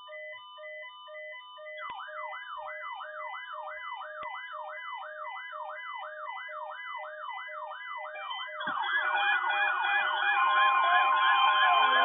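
Layered electronic alert tones: a rapid pulsing beep pattern, joined about two seconds in by a fast rising-and-falling siren-like sweep, about three sweeps a second. Near the end more sweeping tones pile on and get louder, and a steady high tone like a weather radio alarm tone comes in.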